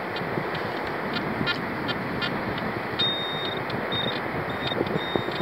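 Garrett pinpointer beeping while it is probed through dug beach sand for a target: short regular beeps, then from about three seconds in several longer held tones as it closes on the coin. Steady wind rush underneath.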